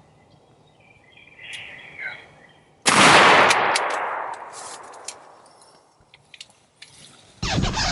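A single shotgun blast about three seconds in, fired at a tom turkey at under 20 yards, ringing out and dying away over about two seconds. Near the end a loud scuffling noise starts.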